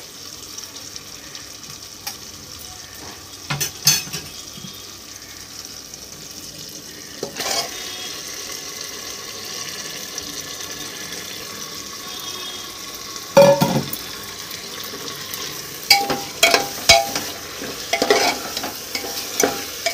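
Marinated mutton frying in hot oil and masala in an aluminium pressure cooker, a steady sizzle that gets louder about seven seconds in as the meat goes in. A metal ladle stirs it, knocking against the pot once or twice midway and clanking several times near the end.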